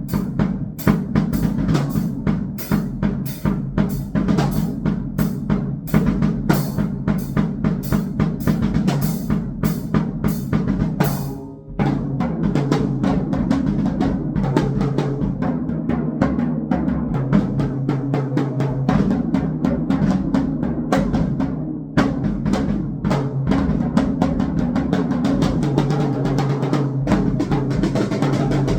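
Drum kit played in fast, dense strokes over a steady electronic noise drone. About twelve seconds in, the playing drops out briefly, then returns as a thicker, more continuous wash of drums and noise.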